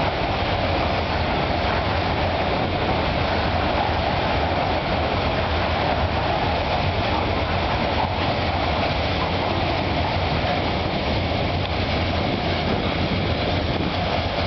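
Long coal train of bogie hopper wagons rolling past, its wheels on the rails making a steady, continuous rumble.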